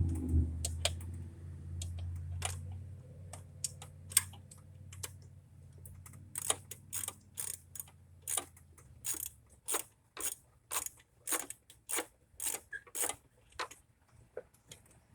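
Hand-tool clicks from work on the engine's EGR valve, scattered at first, then a steady run of about two clicks a second from about six seconds in until near the end. A low hum underneath fades out about halfway through.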